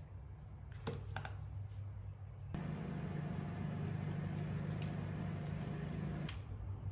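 A steady low machine hum runs throughout and gets louder for a few seconds in the middle. A few sharp clicks of plastic food containers and a sauce sachet being handled sound near the start, with lighter ticks later.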